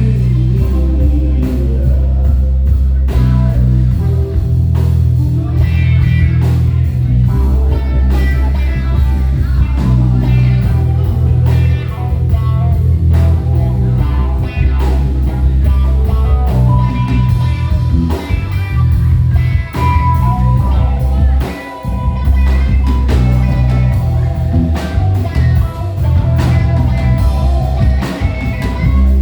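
Live band playing with electric bass, drum kit, keys and a lead guitar line.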